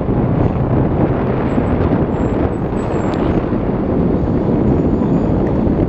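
Steady rumble of a Hong Kong double-decker electric tram running along its track, heard from on board, with wind buffeting the microphone.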